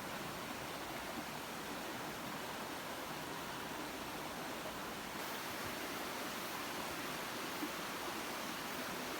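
Steady rushing outdoor background noise with no distinct events, stepping up slightly a little past halfway.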